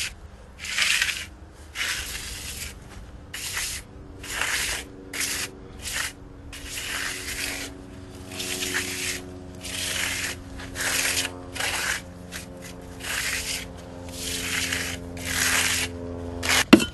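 A small hand tool scraping and smoothing fresh earth-and-gypsum render on a wall, in rough strokes about once a second, each under a second long. A sharp click comes near the end.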